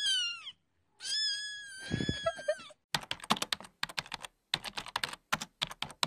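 A kitten meowing twice, high-pitched: a short rising-and-falling meow, then a longer drawn-out one. From about three seconds in, rapid clicking of keys being typed on a laptop keyboard, in quick bursts with short pauses.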